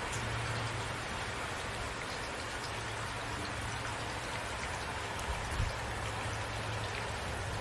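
Steady rain falling, an even hiss with individual drops ticking, over a low steady rumble; a soft low thump about five and a half seconds in.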